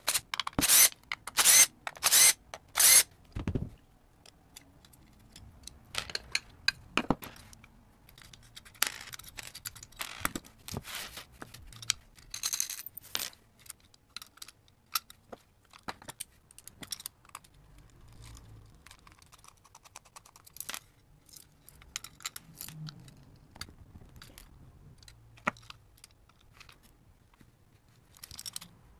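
Hands taking apart a guitar pedal in a die-cast aluminium 1590BB enclosure: a small screwdriver, the back plate coming off, screws, nuts and washers clinking, and the circuit board being handled. Four loud, sharp strokes come in quick succession in the first three seconds, followed by scattered lighter clicks, knocks and rustles.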